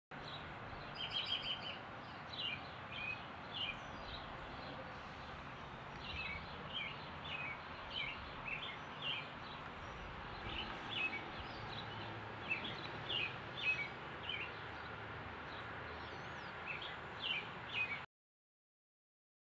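A small bird chirping over and over in short runs of two to four high notes, over a steady outdoor background hiss. The sound cuts off abruptly near the end.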